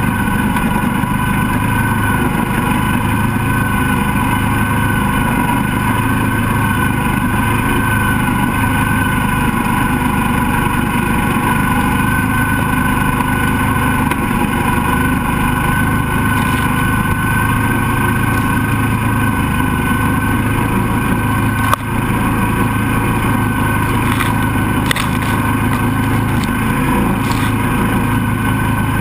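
Mini swamp buggy's engine running at a steady, unchanging pitch while its tires churn through shallow swamp water. One brief knock comes about three-quarters of the way through.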